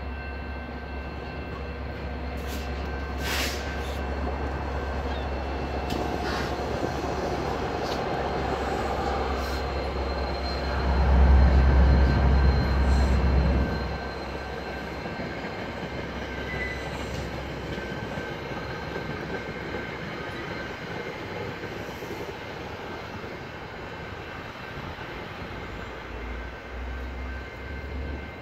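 An exo commuter train passing at close range. A low diesel rumble builds and is loudest for a few seconds about eleven seconds in as the locomotive goes by. The passenger coaches then roll past with a steadier, quieter rumble and a few sharp clicks.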